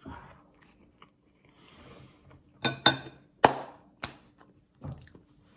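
A few sharp clinks and knocks, four in under two seconds starting past the middle: a metal fork against a plate and hands clapping.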